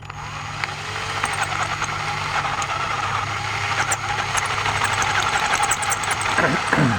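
Electric drill boring a 1/4-inch cobalt bit into a broken hardened steel bolt. The motor runs steadily and grows gradually louder, with scattered ticks as the bit cuts.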